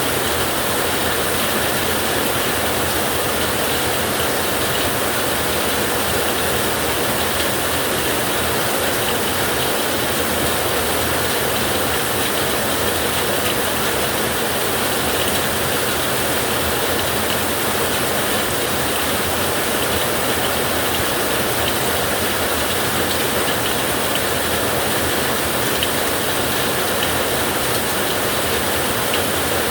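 Ocean surf as an even, unbroken rushing noise, with no separate wave crashes or thunderclaps standing out.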